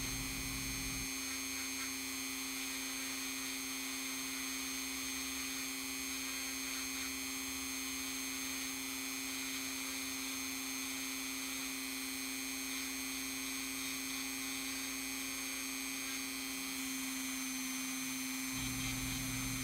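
Steady electrical hum with several constant high tones over it, unchanging throughout.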